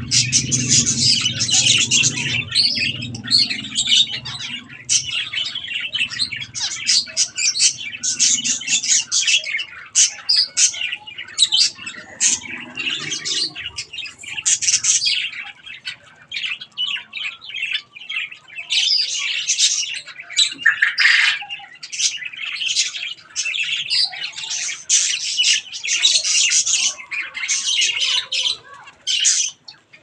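A flock of zebra finches calling in a dense, continuous chatter of short, high calls, with brief lulls around the middle.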